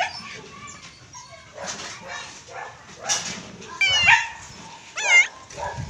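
Calico cat meowing twice, short pitched cries about four and five seconds in, the second dipping and rising again. Rustling and scuffing from a gloved hand stroking and lifting the cat.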